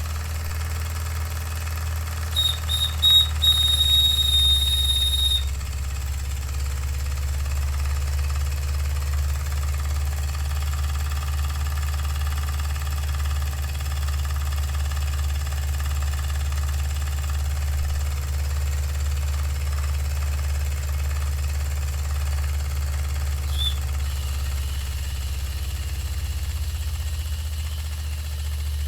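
Empire No.62 toy steam engine running with a steady low hum. About two seconds in, its steam whistle gives a few short toots, then blows one steady high note for about three seconds. There is a brief toot near the end.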